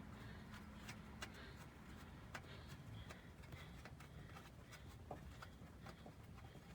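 Near silence: quiet room tone with faint, irregular light clicks and ticks scattered through it.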